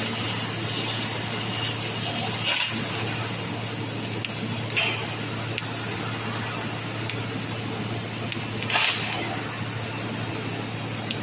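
6 kW CNC laser cutting machine running: a steady rushing hiss over a low hum, with three brief louder bursts of hiss.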